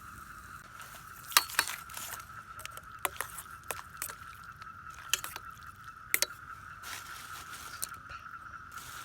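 A handful of sharp, irregular clicks and clinks, the loudest about a second and a half in, over a steady high-pitched tone.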